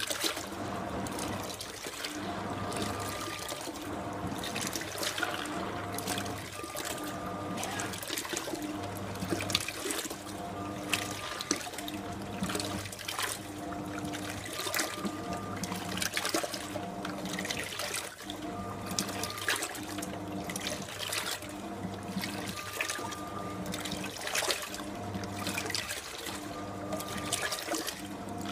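1989 SANYO coin-operated compact washing machine on its rinse cycle. Water sloshes and trickles in the tub while the motor hums in repeated runs of about a second, with short pauses between them.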